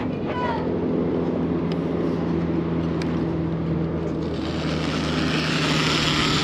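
Zipline trolley running along the steel cable with a steady hum, while a rush of wind builds from about four seconds in and a faint whine starts to rise as the ride speeds up.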